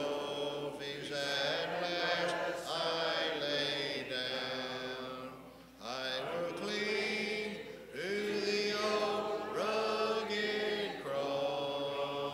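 Church congregation singing a hymn a cappella, with no instruments: long held notes in phrases, breaking briefly between phrases about six, eight and eleven seconds in.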